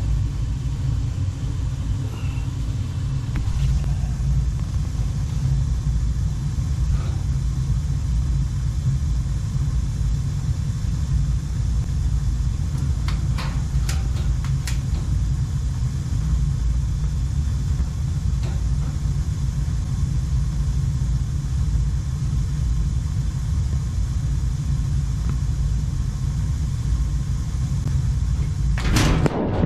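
Gas burner of a Slant/Fin Galaxy steam boiler firing with a steady low rumble while its spill switch is heated, to test that the switch cuts the burner circuit. A few faint clicks come about halfway through.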